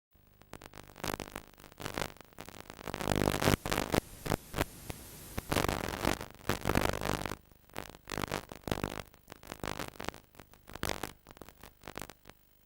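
VHS tape playback static: crackling hiss in uneven bursts over a low mains hum, louder in the middle and dying away near the end.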